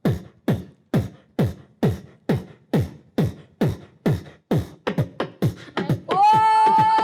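Beatboxed kick drum repeated about twice a second, each beat a deep mouth thump that drops in pitch. The beats quicken about five seconds in, and about a second later a loud held note with bright overtones comes in over them.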